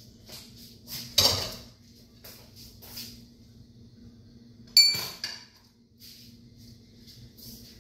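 Kitchen cookware clatter: a knock about a second in and a sharper clink with a brief metallic ring near five seconds. Between them, faint sparse crackles of chopped garlic starting to fry in oil, over a steady low hum.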